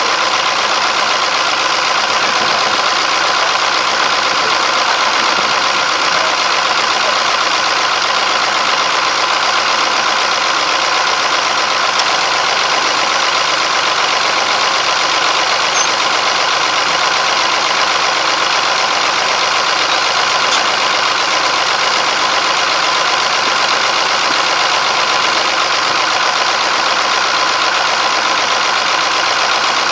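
Rubber-tracked tractor's diesel engine running at a steady speed while the tractor stands still, with no change in pitch or load.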